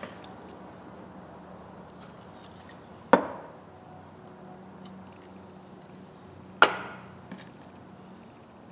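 Two sharp knocks of hard objects handled at a workbench, about three and a half seconds apart, with a faint tick shortly after the second.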